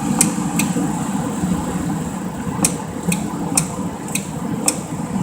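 Steady whir of a high-speed cooling fan in a CB linear amplifier cabinet, with a few sharp clicks, then a run of clicks about two a second toward the middle and end.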